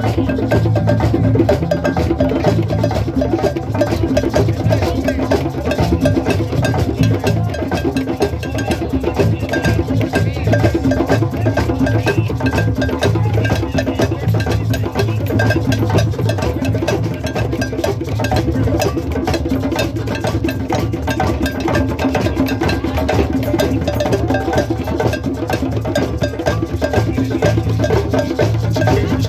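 Live music led by drumming and other percussion, with a steady beat and a full low end that runs without a break.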